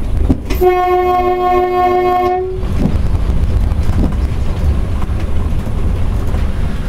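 ED9M electric train's horn sounding one steady blast of about two seconds, starting about half a second in, heard from inside the cab over the steady low rumble of the train running; a few faint wheel clicks follow.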